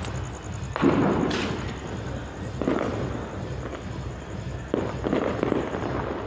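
Fireworks going off: three sharp bangs, each trailing off in a rolling echo, the loudest about a second in.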